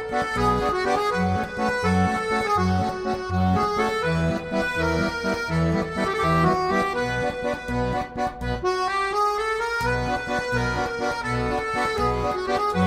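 Accordion music: a melody of held notes over a steady pulse of low bass notes. The bass pulse drops out briefly about nine seconds in.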